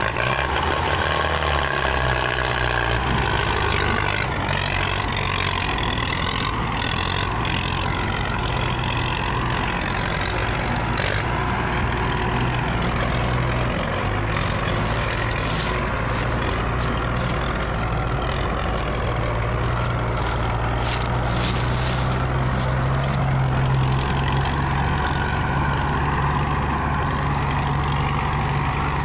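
Two Belarus tractors' diesel engines running hard together under heavy load, straining to haul a stuck, overloaded sugarcane trolley. The steady drone swells a little about halfway through.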